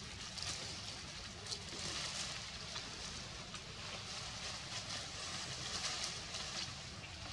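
Forest background sound: a steady high hiss that swells and fades, with a few faint crackles over a low wind rumble on the microphone.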